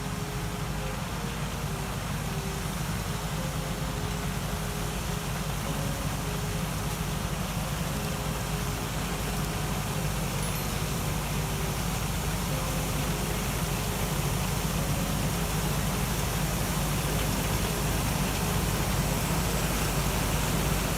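A large machine's engine running steadily under load, an even mechanical drone with a heavy low rumble and broad noise over it.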